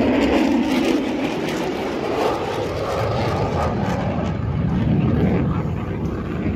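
An F-35A fighter's single afterburning turbofan engine making a loud, steady rush of jet noise as it flies past. The noise swells at the start and again about five seconds in.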